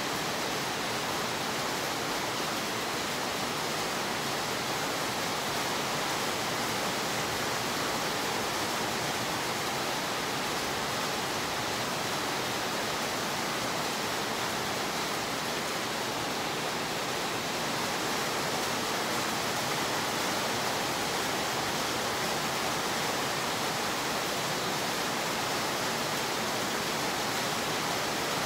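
Steady rain falling, an even hiss that holds the same strength throughout.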